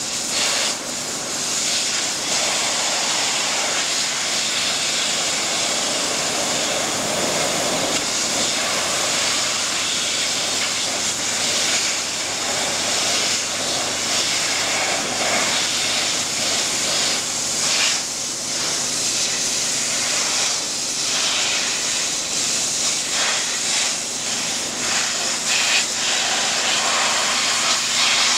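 Densin high-pressure washer jet spraying water onto steel grating: a loud, steady hiss of spray that surges and dips as the jet plays over the bars.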